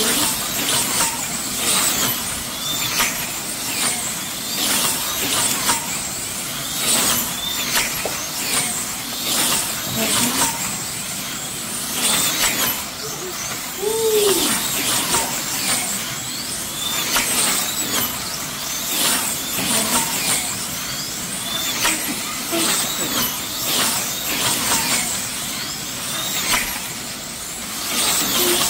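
Electric slot cars racing on a multi-lane track: a steady high motor whine with cars zipping past again and again, about one pass every second.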